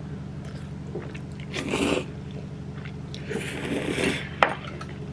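Slurping and chewing spicy tteokbokki noodles: two noisy slurps, the second one longer, and a sharp click about four seconds in.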